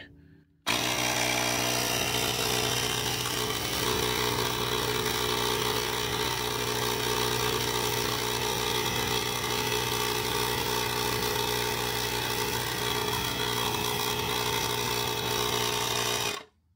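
Ryobi 18V ONE+ cordless tyre inflator's compressor starting abruptly about a second in and running steadily and pretty loud, pumping a tyre up to its set 32 PSI. Near the end it shuts itself off on reaching that pressure.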